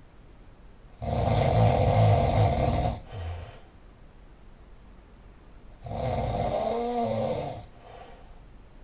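Very loud snoring: two long snores about five seconds apart, the first louder, each trailed by a brief softer sound.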